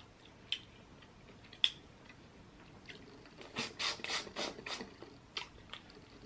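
Mukbang eating sounds of a seafood boil close to the microphone: a few sharp clicks, then a burst of crackling about three and a half seconds in.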